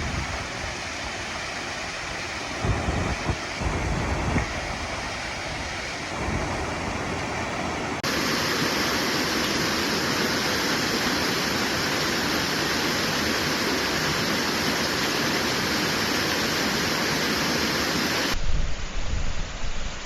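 Steady rush of a waterfall, turning louder and more even about eight seconds in, with wind buffeting the microphone in the first few seconds and again near the end. The sound changes abruptly twice, like cuts between recordings.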